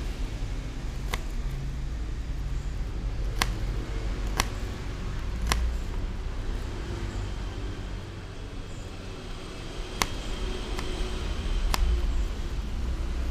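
Small knife blade tapping down on a plastic cutting board while dicing shallots: about seven sharp clicks, spaced irregularly a second or several seconds apart, over a steady low rumble.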